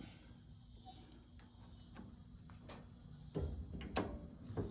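Steady high buzz of cicadas in the background, with scattered clicks and knocks of a reloading press being worked and a brass cartridge case handled; the loudest are a knock about three and a half seconds in and a sharp click at about four seconds.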